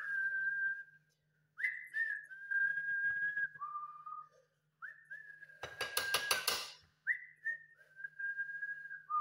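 Clear whistled phrases, each a few held notes stepping down in pitch, repeated four times. About six seconds in comes a quick run of about eight sharp clicks, and a faint low hum runs underneath.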